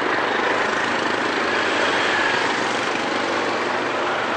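Busy road traffic at an intersection: many motorbike and car engines running together in a steady din.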